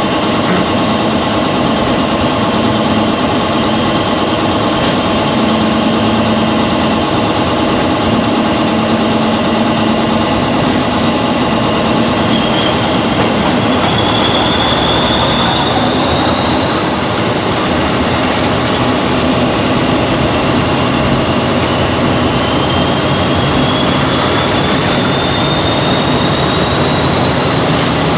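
Class 40 diesel-electric locomotive's English Electric 16-cylinder engine running under power, heard from inside the driving cab, with rail noise. From about halfway through, a high whistle rises steadily in pitch as the locomotive picks up, the turbocharger whistle for which the class is known.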